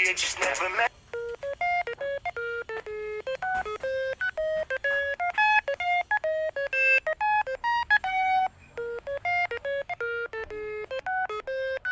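A song with singing cuts off about a second in. Then a melody of short electronic beeps follows, like phone keypad tones, stepping up and down in pitch at about four to five notes a second.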